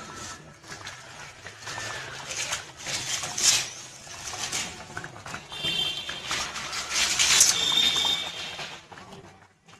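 Thick goat head curry gravy boiling hard in a large pot, bubbling and popping in irregular bursts.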